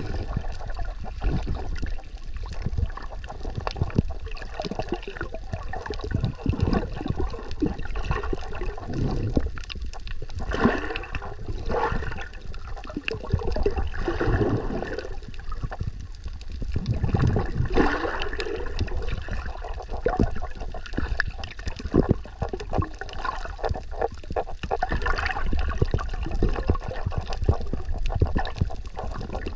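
Water rushing and gurgling around an underwater camera as a swimmer moves through the sea, with bubbly swells every few seconds over a steady low rumble.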